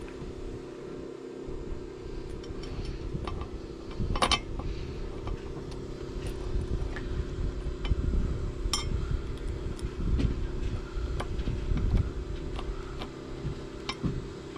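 Short metallic clicks and clinks as a sacrificial anode is handled and fitted onto a sailboat propeller's hub, the loudest about four seconds in and again near nine seconds. Under them run a steady hum and a low rumble.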